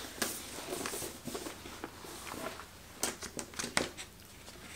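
Hands handling a cardboard kit box and paper instruction booklets: soft rustling with a run of sharp taps and clicks about three seconds in.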